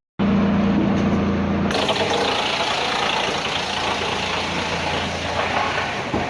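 Industrial drum wood chipper running: a steady hum starts suddenly, and a loud, harsh, dense grinding noise joins it from under two seconds in as wood is fed through and chipped.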